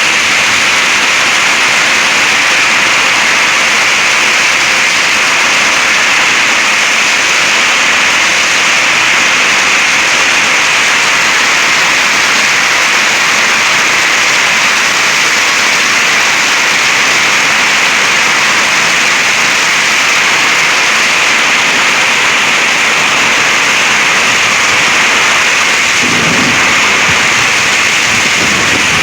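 Heavy thunderstorm rain driven by strong microburst winds: a loud, steady hiss of downpour, with a deeper rush joining in near the end.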